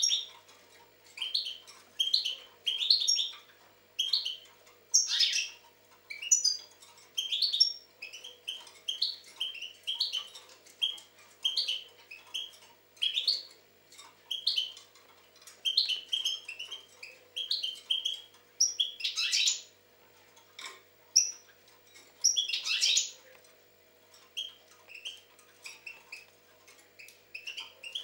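European goldfinch singing: a long run of short, twittering phrases about once a second, with a few louder sweeping notes, over a faint steady hum.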